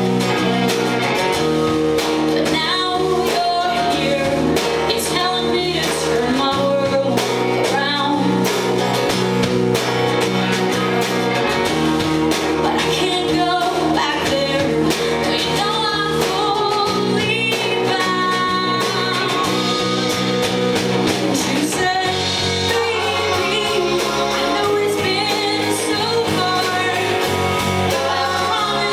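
Live band playing a rock song: a woman singing over electric guitars, a walking bass line and drums.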